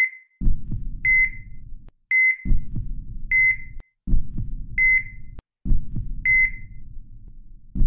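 Heart-monitor sound effect: a short, high, steady beep about every second and a quarter, six in all, over a low, rhythmic beating heartbeat.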